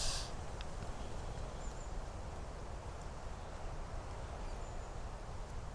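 Quiet woodland ambience: a low steady rumble with two faint, high bird chirps a couple of seconds apart, and a single faint click about half a second in.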